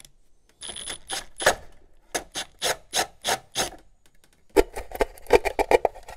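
A spade (paddle) bit scraping through the plastic back of an electrical box in a series of short rasping strokes, run slowly in reverse so as not to crack the plastic. About four and a half seconds in, this gives way to denser rubbing and scraping as wires are pushed through a hole in brick.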